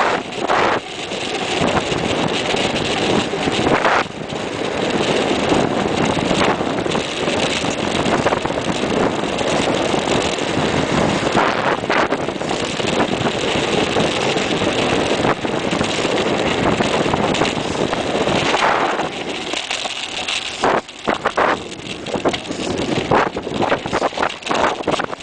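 Wind rushing over a bike-mounted camera's microphone, mixed with tyre noise, as a mountain bike rolls along a tarmac road. About twenty seconds in it turns choppy and uneven.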